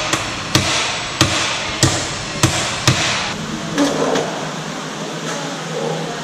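Hammer blows knocking the steering stem out of a Honda Winner 150's steering head so the worn steering-head bearings can be replaced: five sharp metallic knocks about every 0.6 s that stop about three seconds in. A lighter clatter of parts follows.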